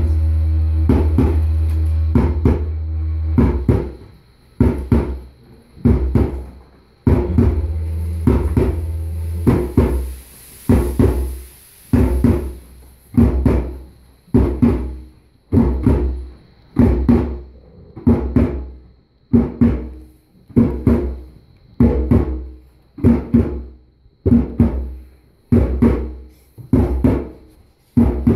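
Music: a slow, steady drum beat, one ringing stroke about every second and a bit. A deep held tone sounds under the beat for the first few seconds and again from about seven to nine and a half seconds in.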